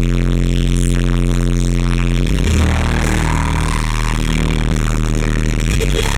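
Loud live band music: sustained chords that change every couple of seconds over a steady low bass.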